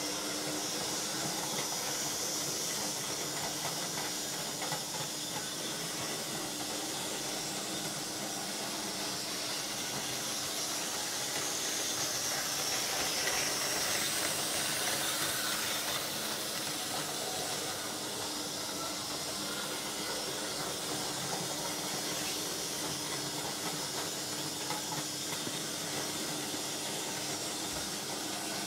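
Vintage Märklin H0 model train running on its track: a steady whirring hiss of motor and wheels, with a faint steady hum underneath. It swells a little about halfway through as the wagons pass close by.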